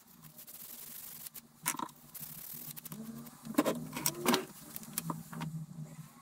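Small wooden parts handled on a workbench: a soft rubbing at first, then a run of light knocks and clatters as pieces are picked up and set down.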